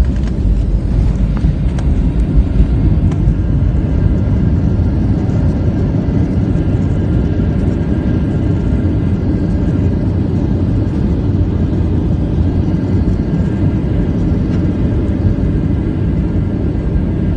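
Jet airliner heard from inside the cabin during the landing roll on the runway: a steady, loud, low rumble of engines and wheels.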